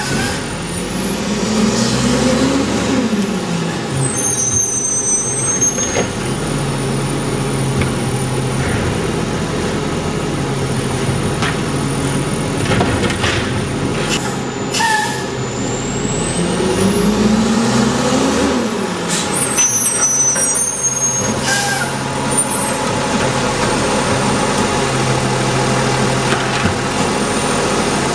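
McNeilus M/A automated side-loader garbage truck on a Freightliner Condor chassis: its diesel engine runs and revs up and back down twice, about fifteen seconds apart, with short hisses from the air brakes.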